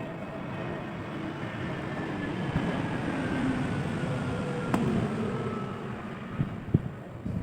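A vehicle passing by, its noise swelling and then fading with a slowly falling pitch. A sharp click comes about two-thirds of the way through, and a couple of light taps near the end.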